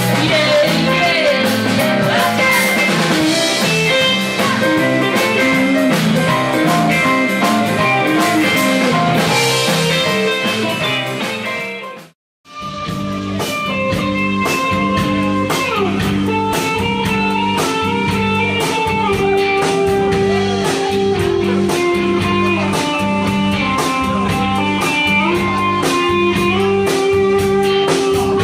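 Live blues band playing, with electric guitar and drum kit. About twelve seconds in, the music drops out abruptly for a moment and another number starts: an edit between recordings. The second number carries long, held melody notes.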